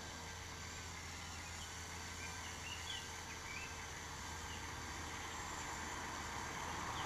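Quiet riverbank ambience: a faint steady hum, with a few faint bird chirps about two and a half to three and a half seconds in.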